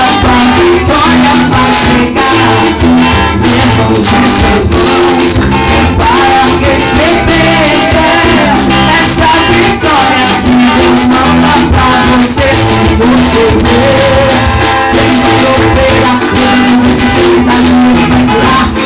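Upbeat gospel band music with a steady beat, a bass line and hand percussion.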